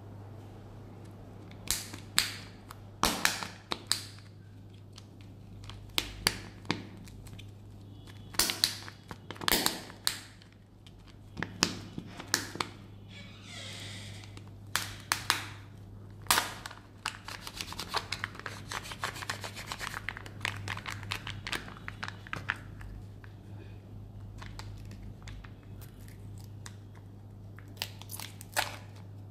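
Kinder Joy egg's foil-plastic wrapper crinkling and tearing as it is peeled off by hand, with sharp plastic clicks and snaps as the egg is split open. A steady low hum runs underneath.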